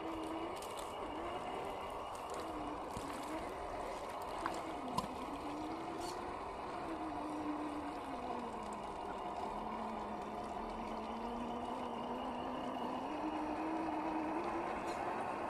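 A 1/10-scale RC crawler's brushed 550 electric motor and geared drivetrain whine as it drives into sticky mud. The pitch wavers with throttle, sags lower for a few seconds in the middle as the truck bogs down with its wheels churning in the mud, then rises again. There are two sharp clicks about four and five seconds in.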